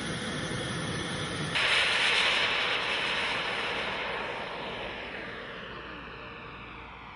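Turbine-powered RC model jet's engine: a loud rushing hiss with a whine that starts suddenly about a second and a half in, then fades and falls in pitch as the jet takes off and climbs away. Before that, a steadier background noise.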